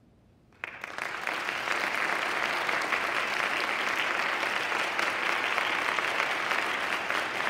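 Audience applauding: after a brief hush, the clapping breaks out suddenly about half a second in and then holds steady.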